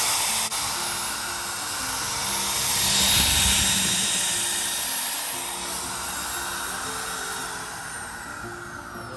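Makita 4403 sash router's trimmer motor running at high speed with a high whine, loudest about three seconds in, then beginning to wind down with a falling pitch near the end.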